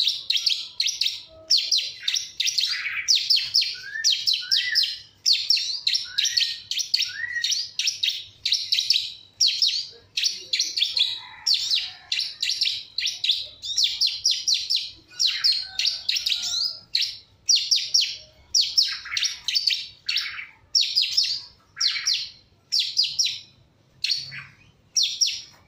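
Long-tailed shrike (cendet) chirping: a long run of short, rapid, high-pitched phrases, one after another with brief gaps.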